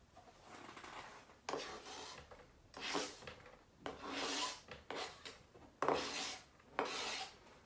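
Kitchen knife blade scraping across a plastic cutting board, pushing minced carrot off into a metal strainer bowl, in a series of rasping strokes about one a second.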